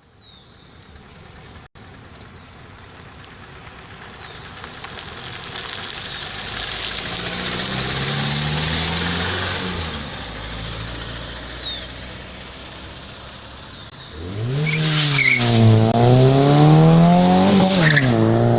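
Fiat Regatta sedans driving past one after another: the first approaches and goes by with tyre and engine noise swelling and fading. About fourteen seconds in, a louder one comes through revving hard, its engine pitch rising and dropping twice before settling to a steady run.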